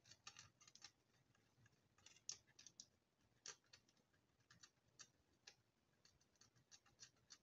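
Faint, irregular small clicks and scrapes of a small screw being turned in by hand into a white plastic stand part.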